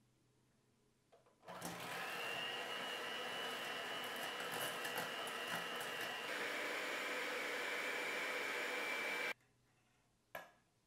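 Midea electric hand mixer running, its beaters whisking egg yolks and sugar in a stainless steel bowl, with a steady high motor whine that drops a step in pitch partway through, then stops. A short sharp click follows near the end.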